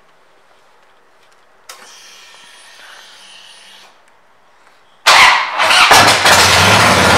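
A 2009 Harley-Davidson Dyna Low Rider's Twin Cam V-twin is switched on and started. A faint whine lasts about two seconds, typical of the fuel pump priming when the ignition is turned on. About five seconds in, the starter cranks and the engine fires loudly, then settles into a steady idle through aftermarket exhaust pipes.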